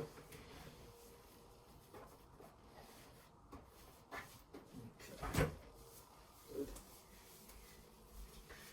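A few soft knocks and bumps over quiet room tone, the loudest a sharp knock about five seconds in.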